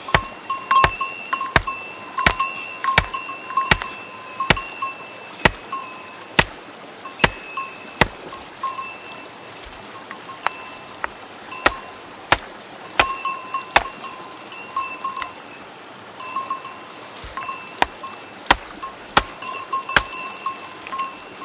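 Steel rock hammer striking stone over and over, about one blow every second or less, each blow ringing briefly, with a couple of short pauses. The rocks are being split open to look for fossils inside.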